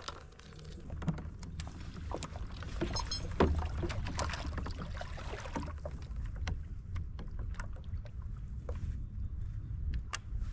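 Fishing kayak on the water: a steady low rumble with many small knocks and clicks, busiest in the first few seconds, and one louder thump about three and a half seconds in.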